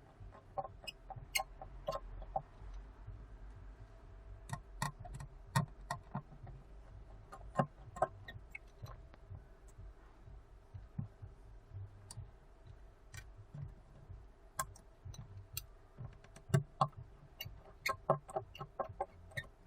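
Irregular small clicks and taps of hand tools working on an opened iPhone 6 Plus as a part is removed, over a faint steady hum.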